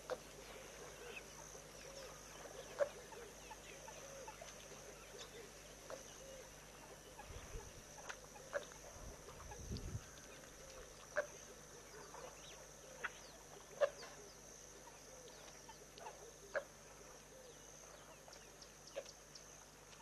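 Faint waterhole bush ambience: a steady high-pitched drone with short, sharp animal calls every second or two, and a brief low rumble about eight seconds in.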